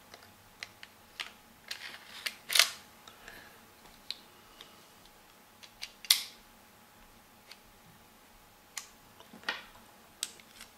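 Metal clicks and small scrapes of a full-metal Colt 1911 CO2 airsoft pistol's slide being worked back onto its frame during reassembly. About a dozen scattered sharp clicks, the loudest about two and a half and six seconds in.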